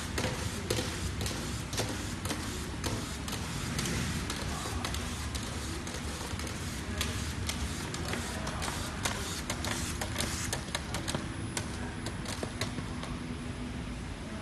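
Flat-surface sticker labeling machine running: a steady conveyor and drive hum with irregular sharp clicks and ticks from the label feed and applicator mechanism.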